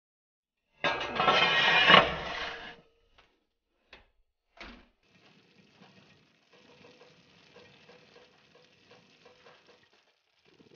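Ceramic baking dish pushed onto a wire oven rack: about two seconds of scraping rattle ending in a sharp clunk, then two short knocks and faint scattered crackling.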